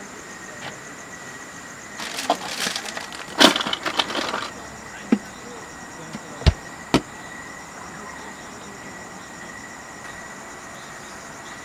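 Rummaging in a portable cooler box to take out a drink can: a couple of seconds of crackling and rattling, then a few separate sharp knocks as the can and lid are handled. A faint steady high-pitched tone sits underneath.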